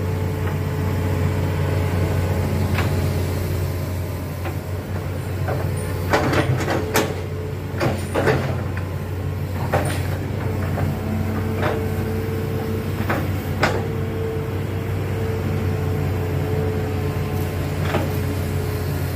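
Hitachi Zaxis 210F amphibious excavator's diesel engine running steadily under work, with a higher whine that comes and goes. Sharp knocks are heard about a dozen times, several in quick succession around the middle.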